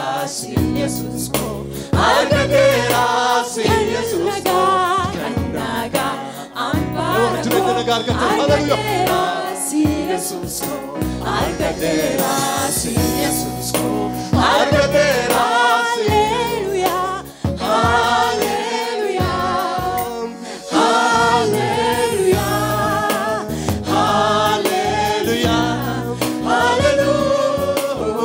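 Gospel worship song sung in Afaan Oromo by a choir of voices over instrumental backing with a steady beat.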